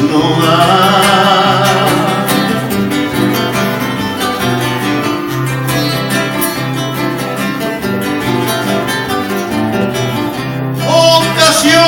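Live folk song with acoustic guitar: a sung line ends about two seconds in, the guitar plays a plucked instrumental passage, and singing comes back in near the end.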